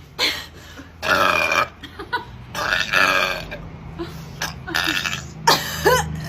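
A woman belching loudly several times in a row, with long, rough burps; the loudest comes about a second in.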